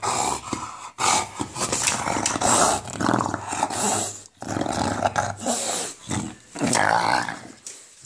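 English bulldog growling in play over a tennis ball: a long, rough gremlin- or monster-like growl, broken by a few short pauses.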